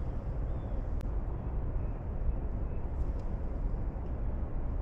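Steady low outdoor rumble with no speech, and one faint click about a second in.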